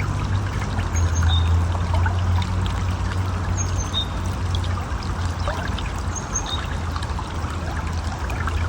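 River water flowing and splashing steadily, with a deep low rumble under the rushing noise. Short high chirps come three times over the top.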